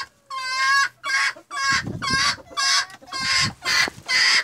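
Chicken squawking loudly: a rapid run of short, harsh calls, about two a second.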